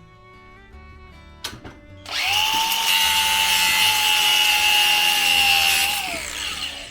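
A click, then a power drill runs steadily at high speed for about four seconds, its motor whine falling away as it winds down near the end.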